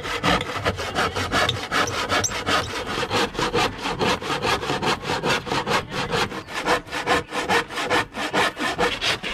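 Dexter handsaw cutting through a melamine-faced chipboard sheet in quick, even back-and-forth strokes.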